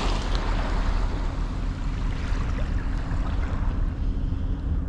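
Small waves washing and breaking on a sandy shore at low water, over a steady low rumble on the microphone.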